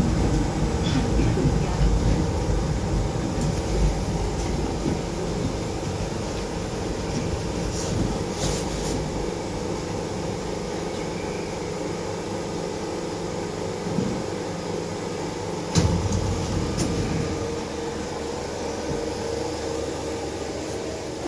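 Moscow monorail train's rubber-tyred running gear rumbling as the train slows to a stop along the platform, the rumble fading over the first several seconds. A steady hum continues, with a light knock and then a sharper knock about two thirds of the way through.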